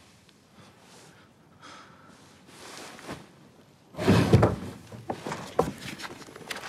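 Near quiet at first, then about four seconds in a sudden loud clatter of things being handled, followed by rustling and several sharp clicks as a thick stack of papers is handled.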